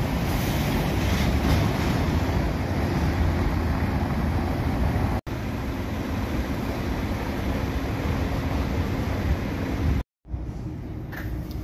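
Steady outdoor city-street noise with a low rumble, in three clips cut together, with brief dropouts about five and ten seconds in.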